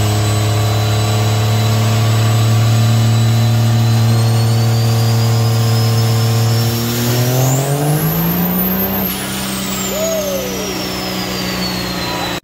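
Modified 2006 Dodge Ram 3500's 5.9 Cummins inline-six diesel with a big single turbo, running under load on a chassis dyno. It drones steadily, then its pitch climbs over about two seconds past the middle and holds, while a high turbo whistle rises and then falls away.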